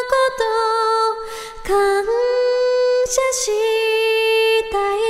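Female vocalist singing long, held notes of a slow Japanese song, with a short pause about a third of the way in.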